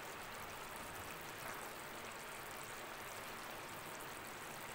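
Drumstick and moong dal badi curry cooking in an open kadai on a gas stove: a soft, steady, even hiss with no single pops standing out.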